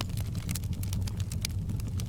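Wood fire in a fireplace crackling: many small, sharp pops and snaps, irregularly spaced, over a steady low rumble.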